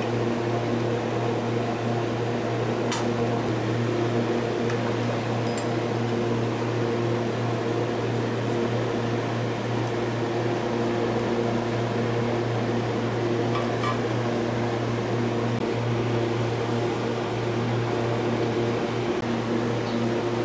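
A steady machine hum, a low drone with even overtones that holds level throughout, with a few faint clicks of metal parts being handled.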